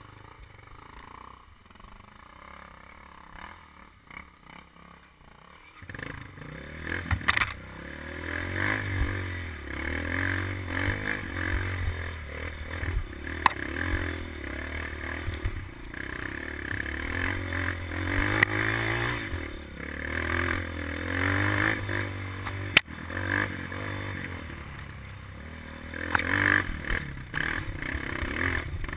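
Dirt bike engine heard on board, revving up and down over and over as the bike works up a rutted dirt trail, with clatter and sharp knocks from the bike over the ruts. It is quieter for the first six seconds or so, then the revving gets much louder.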